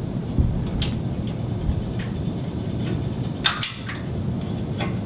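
Plastic MPO fibre-optic connectors clicking as they are handled and pushed into the adapters on the back of a patch-panel blade: a handful of sharp clicks, two of them close together past the middle, over a steady low room hum.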